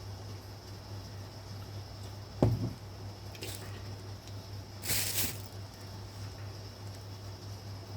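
A sharp knock about two and a half seconds in, then a short rush of hiss-like noise about five seconds in, over a steady low electrical hum.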